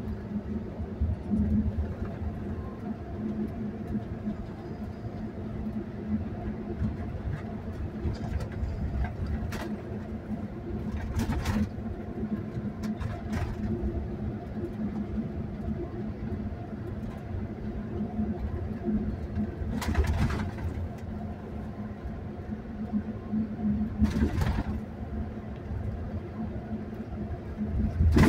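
Inside the cabin of a moving double-decker coach: a steady low engine and road drone. A few brief rushes of noise rise over it along the way.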